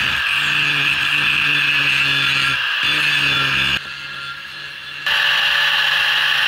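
Angle grinder with a grinding disc grinding down the weld bead on a welded steel pipe T-joint: a steady high grinding whine over the motor's hum. It drops away for about a second past the middle, then picks up again.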